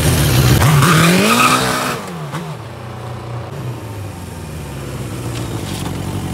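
Sport motorcycle engine running loud, its pitch rising and then falling back, with a short tire squeal about a second in. It then settles to a steadier, lower running note.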